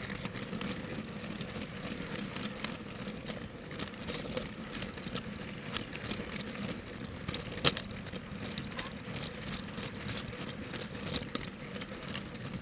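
Toy LEGO train running along plastic track: a dense, steady clatter of plastic wheels over the rails and track joints, over a faint steady hum, with one sharper click a little past halfway.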